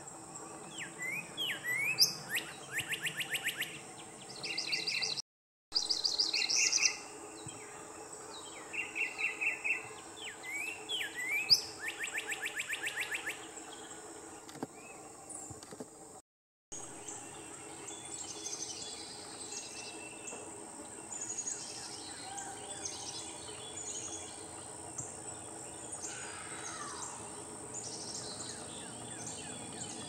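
Small songbird calling: short upslurred notes followed by fast chattering trills, repeated several times over the first half, then fainter scattered chirps. A steady high-pitched hiss runs underneath.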